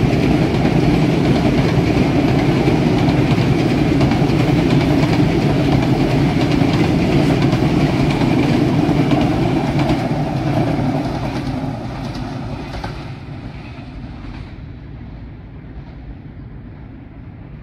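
Freight train running past, its wheels rumbling and clacking over the rail joints. From about ten seconds in the sound fades steadily as the train draws away.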